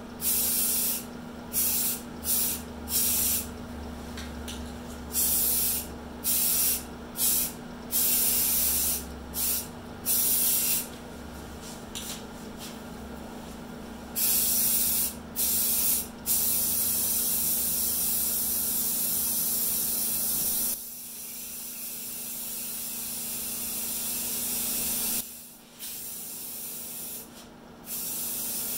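Primer sealer being sprayed onto a fiberglass tractor body: repeated short hissing bursts, then one longer continuous pass of several seconds past the middle, with a steady low hum underneath that cuts out about two-thirds of the way through.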